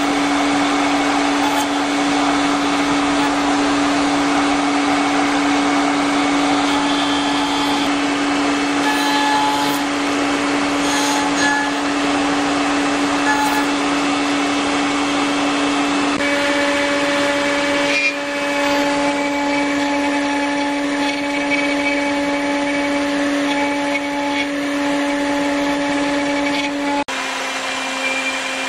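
Spindle of a 5-axis CNC wood router running with a steady tone under the hiss of its bit cutting wood as it carves a small figure. Near the end the sound drops a little, with a slightly lower tone.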